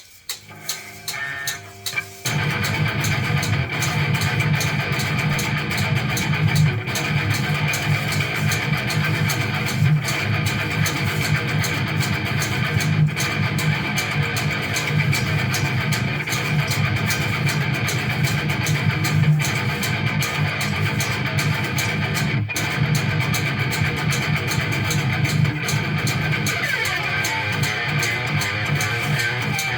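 Instrumental guitar music: a few single picked notes, then full, dense guitar playing comes in about two seconds in and carries on steadily.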